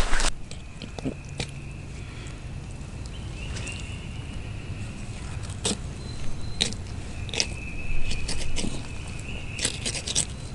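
Scattered crackles and snaps of leaves and brush from footsteps and handling, over a faint low rumble, with a faint high steady tone coming and going.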